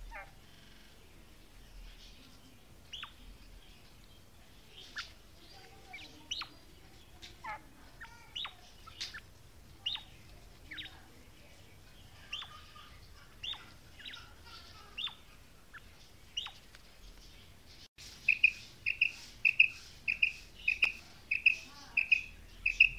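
Female quail calling: a string of sharp, high notes that slide steeply downward, roughly one a second. About 18 seconds in it changes to a louder run of short, clipped notes, about two a second.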